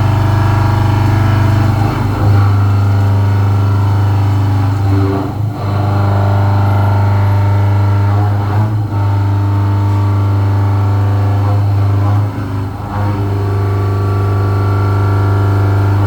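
CNC milling machine running with a loud, steady motor hum that dips briefly four times, about every three seconds.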